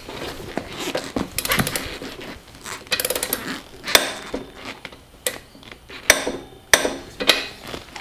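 Sharp metallic clicks and clinks at irregular intervals from a torque wrench and socket on a motorcycle's rear axle nut as it is tightened to 72 ft-lb.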